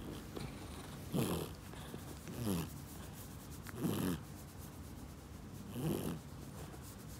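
Domestic cat purring while being stroked, swelling into a louder rumble four times, about every one and a half to two seconds with its breathing.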